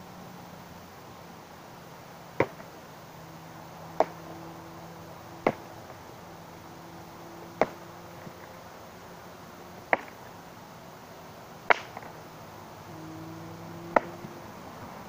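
Seven sharp wooden whacks, about one every two seconds: a stick being swung hard against a branch to break it.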